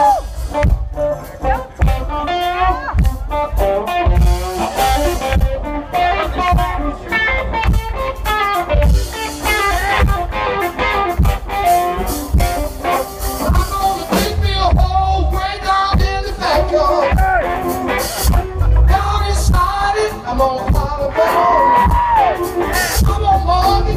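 Live southern rock band playing: electric guitars over a drum kit.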